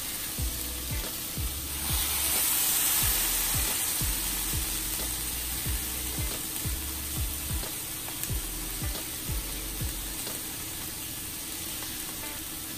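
Duck breasts sizzling skin side down in a hot frying pan, a steady hiss that swells louder for a second or so about two seconds in. Background music with a steady beat, about two thumps a second, runs underneath.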